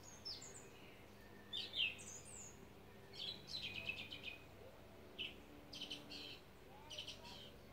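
Quiet wild birdsong: short chirps, brief trills and quick rising and falling whistles, repeating roughly every second, over a faint low hum.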